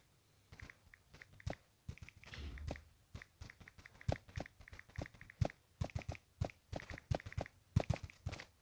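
Typing on a smartphone's on-screen keyboard: short, sharp taps at an irregular pace of about three a second, one per letter.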